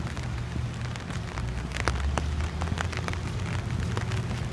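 Steady rain, with many separate sharp drop ticks over an even hiss and a low rumble underneath.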